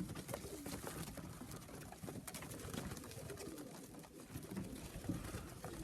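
Racing pigeons cooing faintly, with scattered light clicks and scuffs.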